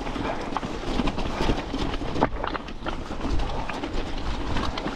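Mountain bike rattling and clattering over a rocky trail: many irregular knocks and clicks from tyres on stones and the bike shaking, over a steady low rumble.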